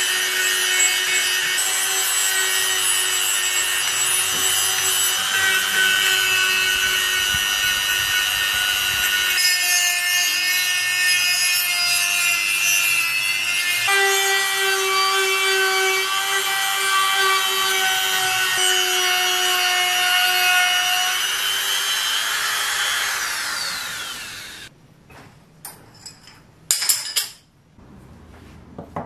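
Rotary tool with a small sanding drum running at high speed, a steady whine with the grit rasping against a toy revolver's metal frame. Near the end the motor winds down and stops, followed by a few light metal clinks.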